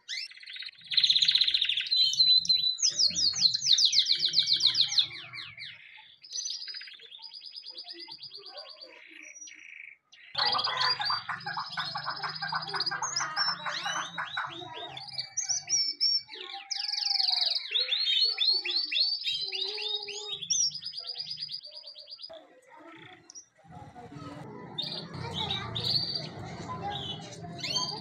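Domestic canary singing: long rolling trills of rapid, evenly repeated high notes, in several phrases with short pauses between them.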